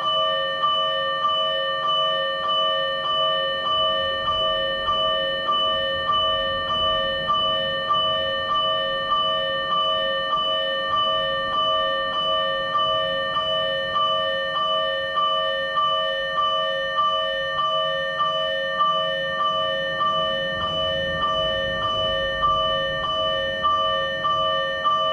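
Fire engine's electronic warning bell from a TWS-5102V siren amplifier, repeating an even clang at roughly two strikes a second. Each metallic strike rings on into the next.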